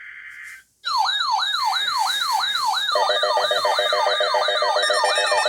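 Electronic siren-style weather alert tone sweeping rapidly down and up, about three times a second, joined about three seconds in by a steadier pulsing lower tone; it signals an incoming severe weather warning. A short buzzy data tone from the alert header ends just before it starts.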